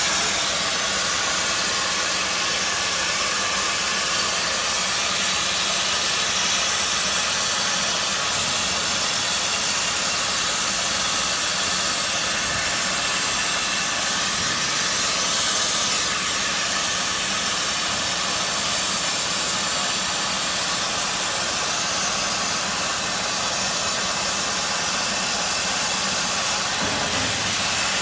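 Plasma torch on a portable CNC cutting machine cutting through steel plate: a steady, loud hiss of the plasma arc and its gas jet.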